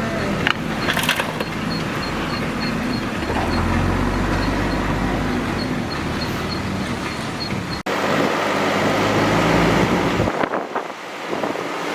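Diesel engine of a JCB 3DX backhoe loader running steadily at work. About eight seconds in the sound breaks off abruptly and a loud rushing noise takes over.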